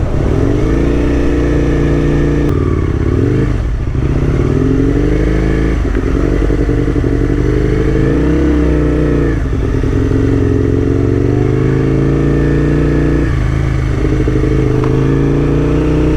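Aprilia RSV1000's V-twin engine running while the bike is ridden, its revs climbing and then dropping at a shift every two to four seconds.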